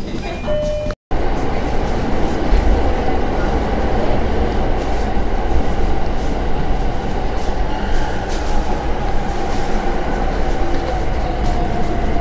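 Joetsu Line local train running at speed through a tunnel, heard from inside the carriage: a steady low rumble with faint wheel clicks. A faint falling whine comes in near the end. The sound cuts out for a moment about a second in.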